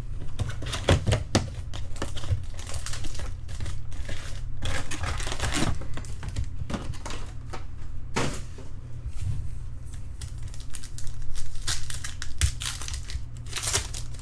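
Trading card packs and cards being handled: wrapper crinkling and tearing, with irregular clicks and taps of cards and packaging.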